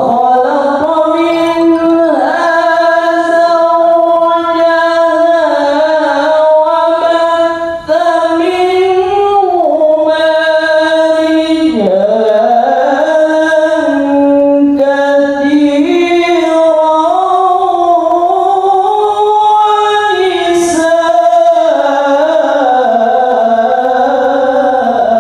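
A man's solo voice through a microphone and PA, chanting unaccompanied in long, high, ornamented held notes, with a short pause for breath about eight seconds in.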